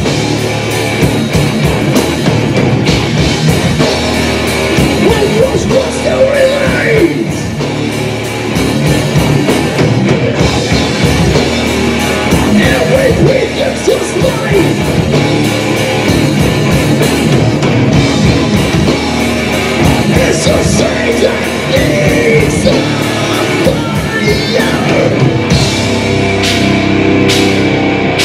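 Live heavy-metal band playing loudly: distorted electric guitars, bass guitar and drum kit, with singing.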